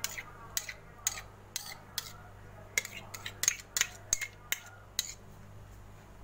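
Metal ladle clinking and scraping against a metal baking tray while spreading thick béchamel sauce over penne: irregular sharp clinks, bunched most closely in the middle.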